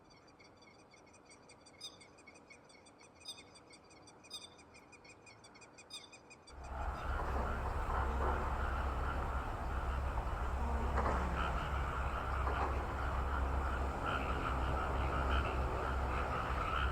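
Frogs calling in a flooded rice paddy: rapid pulsed trills with a few louder croaks. About six and a half seconds in, a loud low rumble suddenly sets in under a denser frog chorus.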